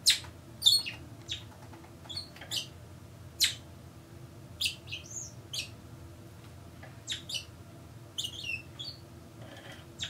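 Small pet parakeets chirping: a dozen or so short, high chirps at irregular intervals, a few sliding quickly in pitch, with one curved up-and-down call about five seconds in.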